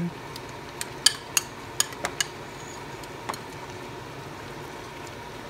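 Metal spoon tapping and clinking against a ceramic bowl while scooping up salmon and broth: several light clicks in the first couple of seconds and one more about three seconds in.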